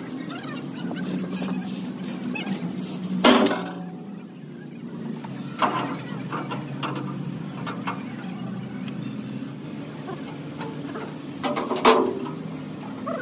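Steel plates and a crane boom's steel box section clanking as they are handled: three sharp metal clanks, the loudest near the end, with lighter knocks between, over a steady low machine hum.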